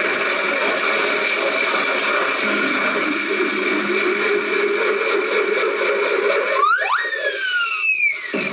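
Hissy, distorted old soundtrack with music under it; about seven seconds in, a whistle-like sound rises sharply and then slides back down in pitch.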